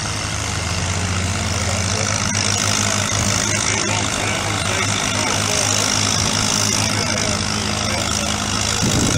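Antique tractor engine running steadily under load as it pulls the weight sled down the track, its loudness slowly building.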